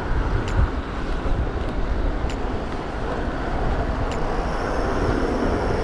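Steady wind rushing over an action camera's microphone, mixed with tyre rumble from a Stromer ST3 speed pedelec rolling over asphalt, with a few faint ticks.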